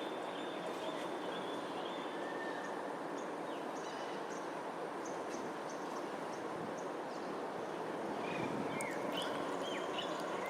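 Birds calling with faint short chirps and whistles over a steady background hum. A few sharper calls come about eight to nine seconds in.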